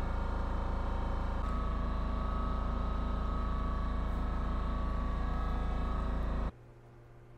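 A machine running steadily with a deep hum, shifting slightly in tone about a second and a half in, then cutting off abruptly about six and a half seconds in.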